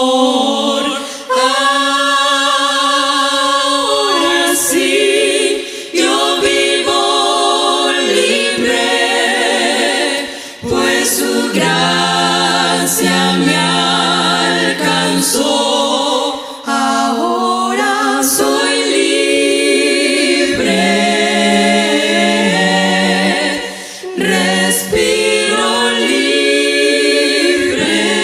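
Women's vocal quartet singing a cappella in close harmony, with brief pauses between phrases.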